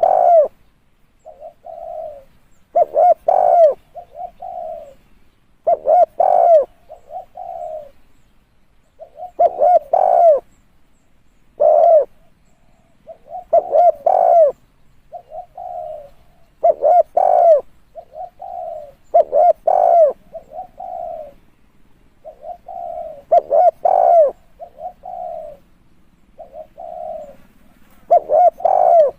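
Spotted dove cooing: a phrase of several coo notes repeated about every three to four seconds, roughly eight times.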